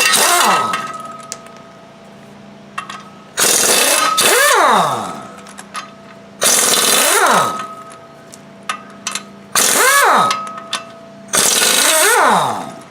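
Impact wrench hammering in short bursts, four in all with the tail of one more at the start, each winding up and spinning down, as it breaks loose the 18 mm flex plate to torque converter bolts. Small clicks of the socket and bolts come between the bursts.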